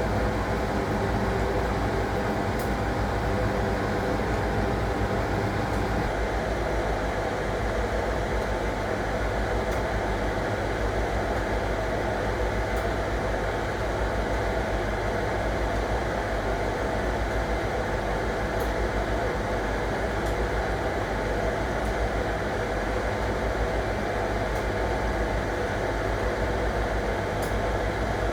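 1961 AEG Lavamat Noris washing machine running with a steady motor hum and whine that does not change.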